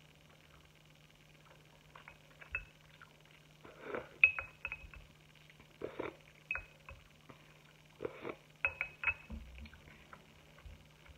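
Close-up eating sounds: sips and slurps from a wooden spoon in three bouts, with chewing, and short high clinks of a metal fork against ceramic dishes.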